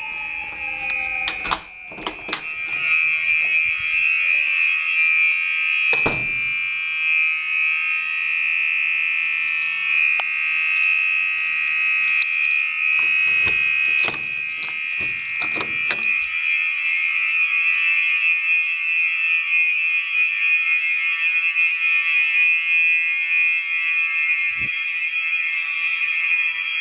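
Gentex SHG building fire alarm sounding continuously, one steady high buzzing tone that signals evacuation. Sharp clicks and knocks from a door knob and door being worked come through several times in the first half.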